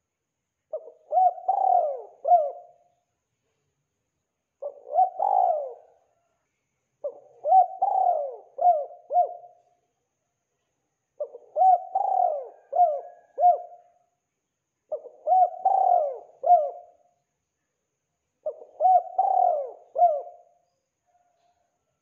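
Spotted dove cooing: six phrases of three or four short coos each, repeated every three to four seconds with silence between.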